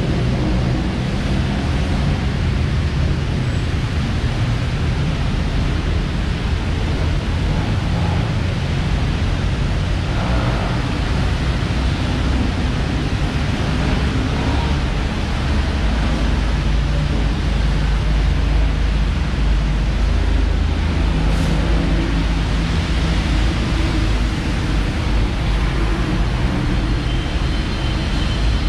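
Steady street traffic: the engine rumble and tyre noise of passing vehicles on a wet road, with a faint high whine near the end.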